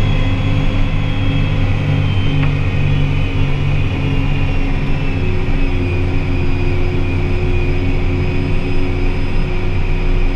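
Tractor's diesel engine running steadily under load, its pitch shifting slightly about halfway through.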